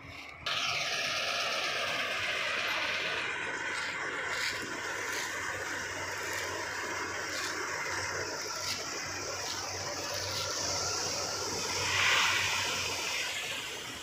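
Combine harvester running close by, its engine and threshing machinery making a loud, steady noise that starts suddenly about half a second in and briefly swells near the end.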